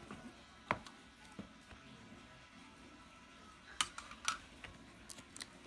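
Cardboard laptop box being handled and opened: a few light clicks and taps of cardboard. The sharpest come a little under a second in and twice around four seconds in.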